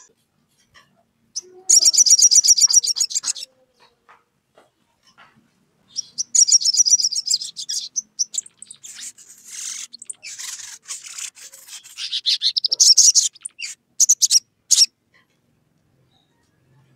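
Olive-backed sunbird singing: two fast, high trills of rapidly repeated notes, then a jumble of mixed notes, a rising trill, and a few sharp single chips near the end.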